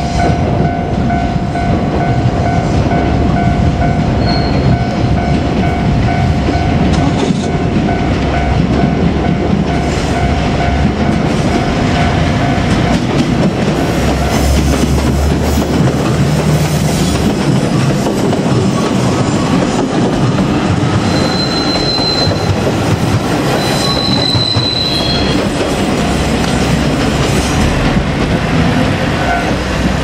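JR Kyushu 817 series electric train running past close by, its wheels clattering over the rail joints. The rumble is heaviest about 15 seconds in, and short high wheel squeals come at about 21 and 24 seconds in.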